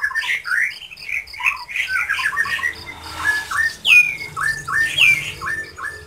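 White-rumped shama (murai batu) singing a varied run of short whistled notes, with a few quick falling whistles in the second half.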